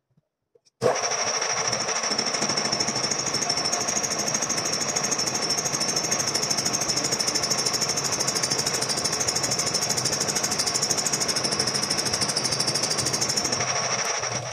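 Reciprocating gear-cutting machine running, its tool stroking rapidly and evenly as it cuts teeth into a metal gear blank, with a steady high whine over the strokes. It starts abruptly about a second in.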